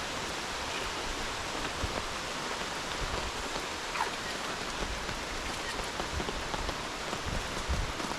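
Steady rain falling in tropical rainforest, a dense even hiss, with a few soft low thumps of heavier drops now and then.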